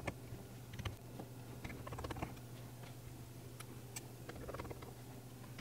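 Faint, scattered light clicks and taps as a small tri-tip screwdriver works the tiny screws and cable-cover brackets out of an opened iPhone 12, over a low steady hum.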